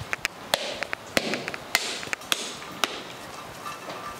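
Fresh coconut struck repeatedly with a heavy knife to crack its shell open: a series of sharp knocks, about one every half second, ending about three seconds in.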